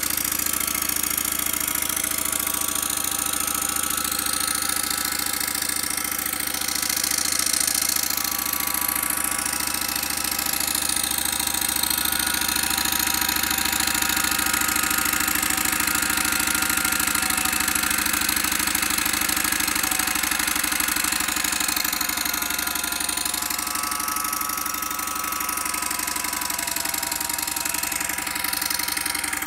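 PM Research No. 3 model steam engine running steadily at speed, belt-driving a small dynamo, with a fast continuous beat from its exhaust and moving parts.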